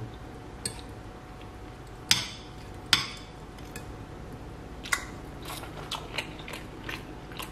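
Steel knife and fork clinking and scraping against a ceramic plate while a roast chicken drumstick is cut off, with sharp clinks about two and three seconds in and lighter ticks near the end.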